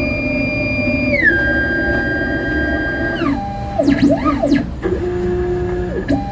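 Formlabs Form 4 resin printer's stepper motors whining during the pre-print routine, checking the build platform. The machine gives steady electronic-sounding tones that step and glide between pitches, R2-D2-like, with quick up-and-down warbling sweeps about four seconds in.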